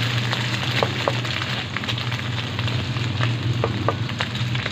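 Eggs frying in hot oil in a non-stick wok, sizzling with scattered small pops as a spatula pushes and breaks them up. A steady low hum runs underneath.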